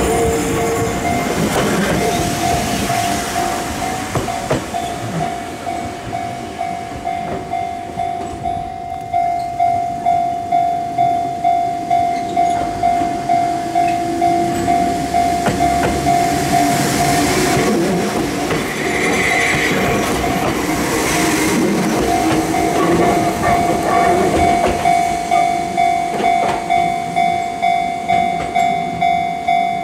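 Level-crossing warning bell ringing in a steady repeated ding while an Enoshima Electric Railway (Enoden) train rolls slowly past close by, its wheels clattering on the rails. The bell stops for a few seconds a little past halfway, then starts ringing again as the next train approaches.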